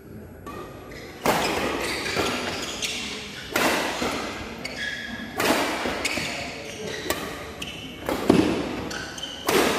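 Badminton doubles rally: rackets striking the shuttlecock about five times, roughly every two seconds, each hit sharp and echoing in the hall, with short squeaks of shoes on the court between hits.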